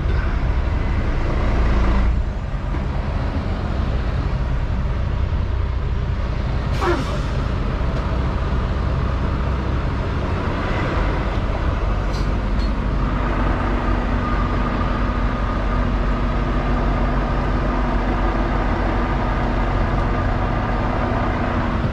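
Semi truck's diesel engine running steadily, with a brief rising squeak about seven seconds in. About halfway through, a steady higher hum joins the engine sound.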